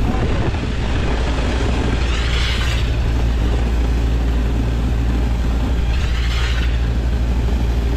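Concrete pump running steadily under load with a low, constant engine drone while concrete is pumped through the hose for a shotcrete pool shell. A hissing rush swells up twice, about two and a half and six seconds in.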